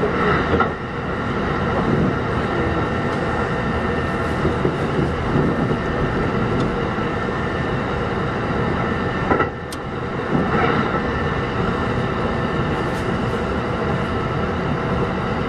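Kintetsu 1201 series electric train running between stations: steady motor and gear tones over wheel and rail noise. There are brief dips in the sound early on and about nine and a half seconds in, the second followed by a single sharp click.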